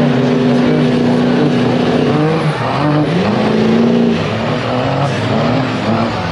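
Lifted diesel pickup truck's engine revving hard under load in a tug of war. It holds a steady high pitch, drops about two seconds in, then climbs again and wavers.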